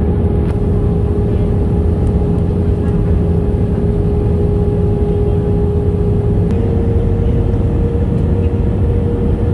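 Jet airliner cabin noise from a window seat over the wing: a steady rush from the turbofan engines and airflow, with a steady engine tone that steps up a little in pitch about six and a half seconds in.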